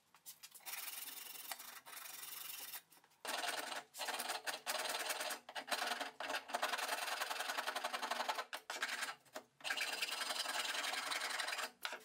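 Hand file scraping across an oak hammer handle in repeated back-and-forth strokes, shaping the wood, with brief pauses between runs of strokes.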